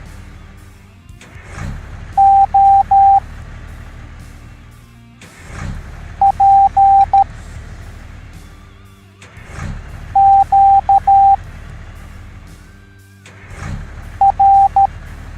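Morse code beeps: a steady mid-pitched tone keyed in groups of short and long beeps, spelling out one letter about every four seconds, four letters in all. Under them runs a low rumble, with a whoosh just before each letter.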